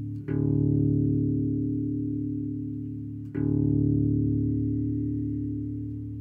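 Music: a low, sustained chord struck twice, about three seconds apart, each time left to ring and slowly fade.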